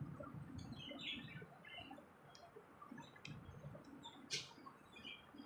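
Quiet eating sounds: scattered lip smacks and small wet clicks of someone eating rice pudding by hand, with one sharper click a little past four seconds in.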